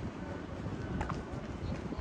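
Wind buffeting the microphone as a low, uneven rumble, with faint background voices and a single sharp click about a second in.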